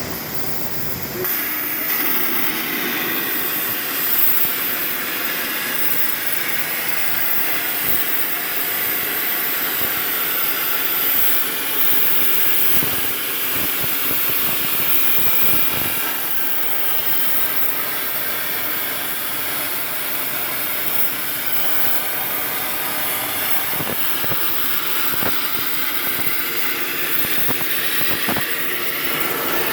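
CNC plasma torch cutting 4 mm steel plate: a loud, steady hiss of the arc and cutting air that comes on stronger about a second in.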